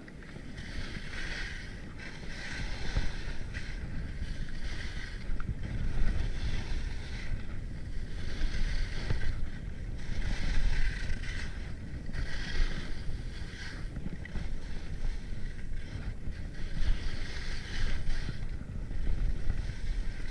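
Skis carving turns on packed snow, a scraping swish on each turn about every one and a half to two seconds, over wind rumbling on the microphone.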